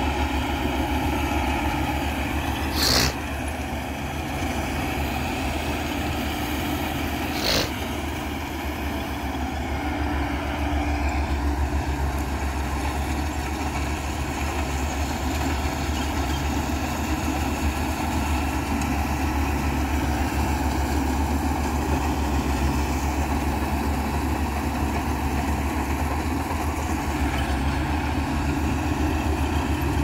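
Rice combine harvester's engine running steadily as the machine cuts rice, a continuous low drone. Two brief, sharp high-pitched noises stand out, about three seconds in and again some four seconds later.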